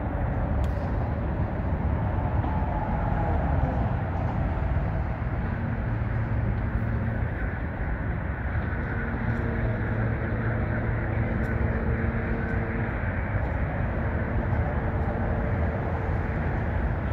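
Steady low rumble of motor traffic, with a steady engine hum from about five to thirteen seconds in.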